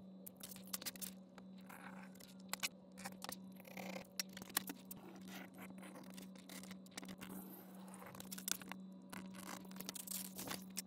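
Fiskars fingertip hobby knife with a #11 blade cutting through 3–4 oz oil-tanned leather along a straight edge: faint scratchy slicing and scraping with many small clicks. A steady low hum runs underneath.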